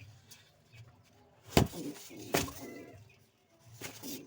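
Pouter pigeons cooing, broken by a few sharp knocks, the loudest two close together just past the middle.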